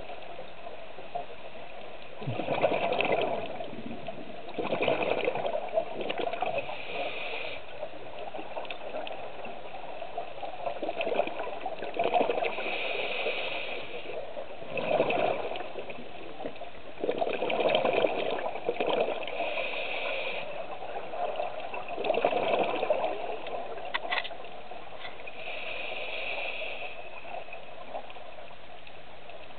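Scuba diver breathing through a regulator underwater, heard from a camera housing. Exhaled bubbles gurgle in bursts every few seconds, alternating with the hiss of inhaling.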